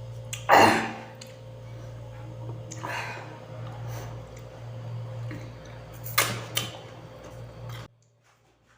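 Crunching bites and chewing of raw cucumber: three loud crunches about half a second, three seconds and six seconds in, over a steady low hum. The sound cuts off abruptly near the end.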